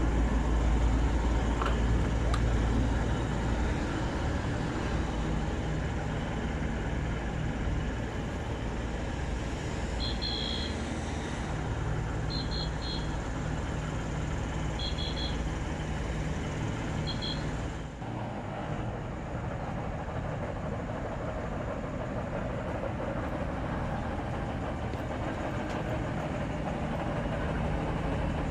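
Steady street traffic noise, with a short electronic double beep repeating four times about every two and a half seconds in the middle stretch. The background then changes abruptly to a lower, steady engine hum.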